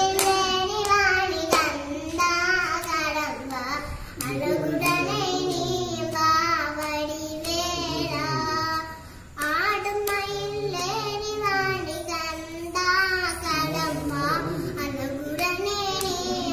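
A young girl singing solo, holding long notes that bend and waver in pitch, with two short breaks for breath, about four and nine seconds in.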